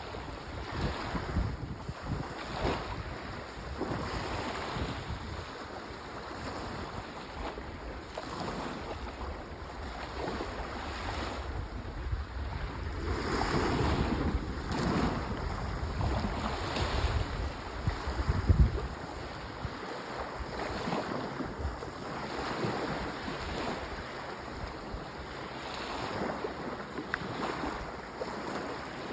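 Small sea waves washing in and out on a sandy shore, a soft wash swelling every couple of seconds. Wind buffets the microphone with low rumbling gusts, the loudest about two-thirds of the way in, after which the buffeting drops away.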